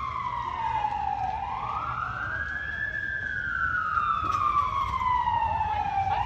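Emergency vehicle siren wailing: the tone climbs quickly about a second in, falls slowly for three seconds, then starts climbing again near the end.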